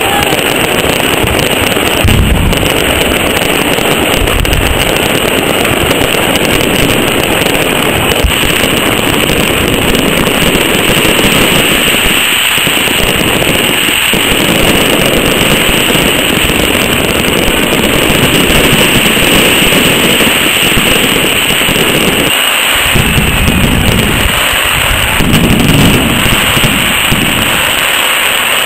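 Fireworks display going off in a dense, continuous barrage of crackling and bangs. Heavier low booms come about two seconds in and again in a cluster near the end.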